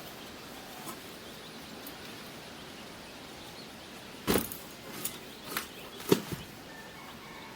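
A few short, sharp knocks over a quiet steady background, the first and loudest about four seconds in and three more over the next two seconds.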